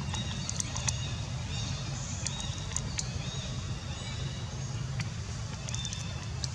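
Outdoor ambience: a steady low rumble with many short, high chirps and a few sharp clicks over it.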